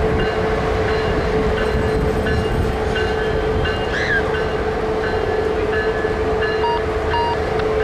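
Freight cars of the Canadian Pacific Holiday Train rolling slowly past: a steady rumble with a constant whine, and a few short high tones scattered through it.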